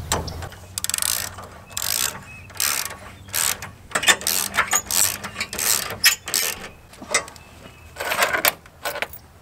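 Socket ratchet wrench clicking in a run of short back-and-forth strokes as it tightens the nuts on a hitch tightener/stabilizer clamped around a receiver hitch; the strokes stop shortly before the end.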